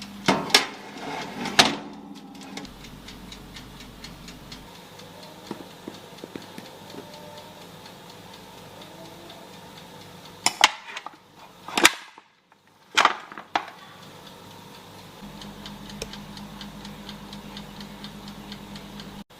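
Steady fast ticking, about four ticks a second, with a few loud sharp knocks twice near the start and several more in the middle.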